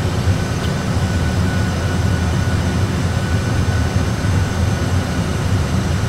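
Steady low rumble of Airbus A320 flight-deck engine and airflow noise during an autopilot approach, with the engines at approach thrust. A faint steady high tone sits above it.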